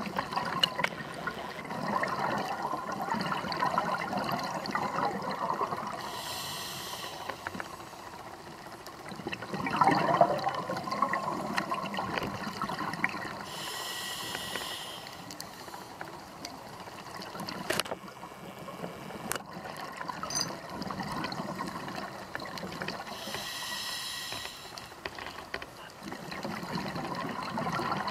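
A scuba diver's regulator breathing, heard underwater: three hissing inhalations roughly every eight seconds, with bubbly, gurgling exhalations swelling between them.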